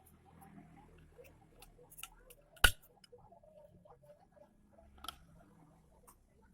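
Light clicks and taps of objects being handled, with one sharp click about two and a half seconds in and a smaller one about five seconds in.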